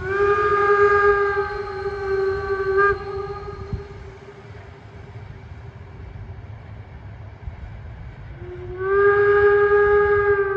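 Steam whistle of the Danish DSB Litra Q 350 steam locomotive blowing two long blasts, each rising slightly in pitch as it opens. The first lasts about three seconds; the second starts about eight and a half seconds in and is still sounding at the end. A low rumble of the running train lies underneath.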